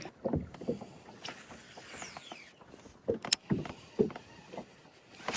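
Scattered light knocks and clicks of fishing gear being handled in a kayak, with one sharper click a little past the middle.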